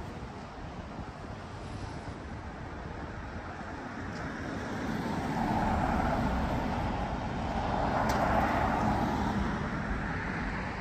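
Road traffic: cars passing by, their tyre and engine noise swelling twice in the second half.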